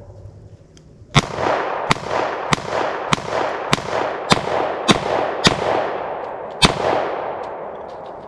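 Glock pistol in a Micro Conversion Kit chassis firing nine shots at a steady pace, about one every 0.6 s, the last after a slightly longer pause, each with a ringing echo tail. The magazine is emptied.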